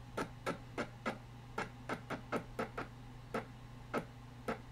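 A run of single key taps on a computer keyboard, about a dozen at an uneven two to three a second, over a faint steady low hum.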